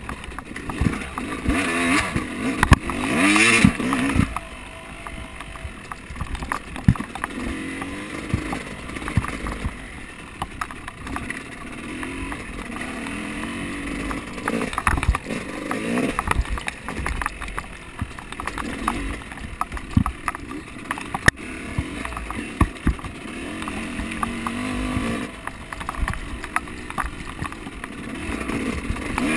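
An off-road vehicle's engine running and revving up and down, with scattered knocks and rattles. It is loudest in a rev about three seconds in.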